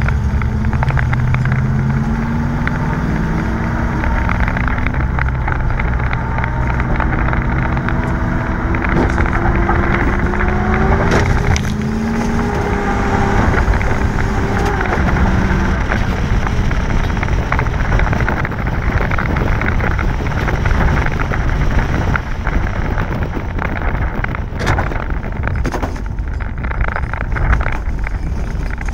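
Car engine heard from inside the car on a dirt track, rising and falling in pitch as the car speeds up and slows, over heavy road and wind noise with a few sharp knocks.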